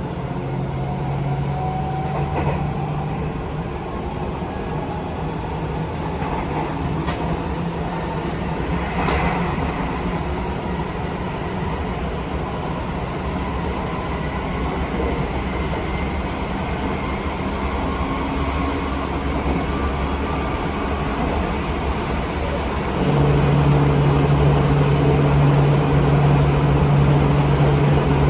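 Seibu 20000 series electric train running, its Hitachi IGBT-VVVF inverter and traction motors humming steadily over the rumble of wheels on rail. About 23 seconds in the hum steps up and grows louder.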